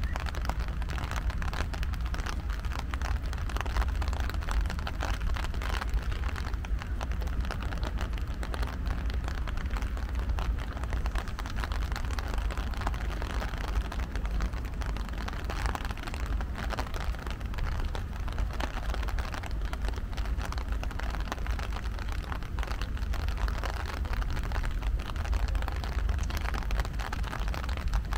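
Steady light rain pattering on wet pavement, with a constant low rumble underneath.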